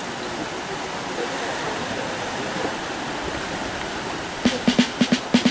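Surf washing onto a rocky coral shore: a steady rush of waves. Near the end, a quick run of drum hits starts the backing music.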